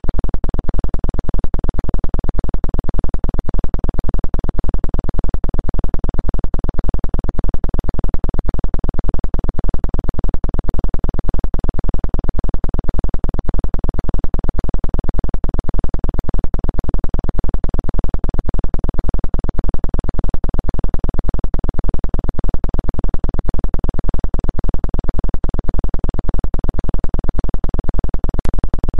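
Synthesized drone of a 2 Hz 'healing frequency' track, pulsing evenly and rapidly without change, strongest in the deep bass.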